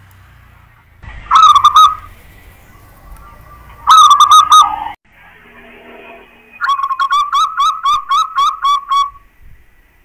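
Zebra dove (perkutut) of a local champion line cooing loudly. There is a short coo phrase about a second in and another about four seconds in, then a quick run of about ten clipped coo notes.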